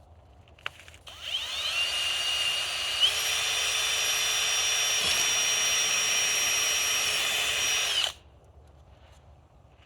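Power drill running for about seven seconds, most likely drilling a hole in the trellis tubing: a small click, then the motor spins up with a rising whine about a second in and steps up in pitch a couple of seconds later. It holds steady, then cuts off near the end.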